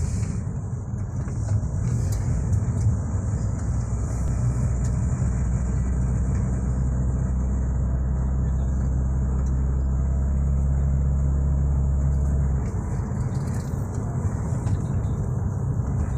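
Engine and road noise of a moving vehicle heard from inside the cabin: a steady low drone whose note changes about twelve seconds in, with a faint steady high hiss over it.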